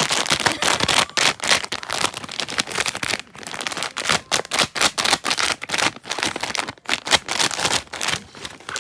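A dense, irregular run of crinkling and crackling from a jwipo (dried filefish snack) being handled. There are brief lulls a little past three seconds in and again near seven seconds.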